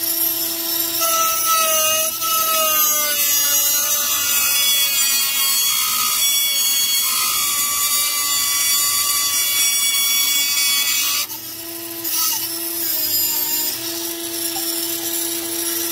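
Flex-shaft rotary tool with a small abrasive cut-off wheel running at speed with a steady whine, grinding through the end of a steel screw from about a second in. The grinding hiss stops about eleven seconds in as the cut finishes, and the tool keeps spinning.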